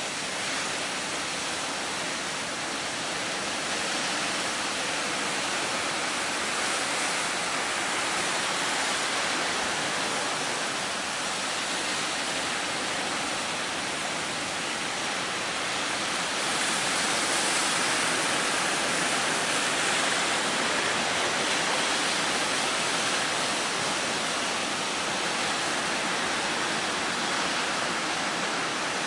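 Steady rush of heavy sea surf and strong wind, swelling a little now and then, with no separate crashes standing out.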